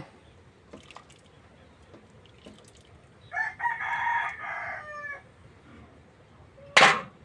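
A rooster crowing once, a call of about two seconds that drops in pitch at the end. About a second and a half later comes a single sharp knock, the loudest sound.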